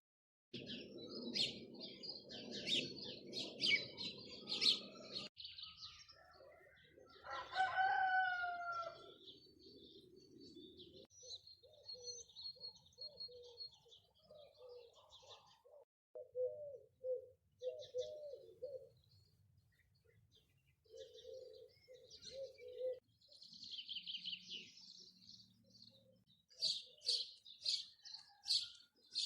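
Village birds: small birds chirping throughout, a rooster crowing once about seven seconds in, and a run of short low calls repeated in the middle. A low rushing noise sits under the first five seconds.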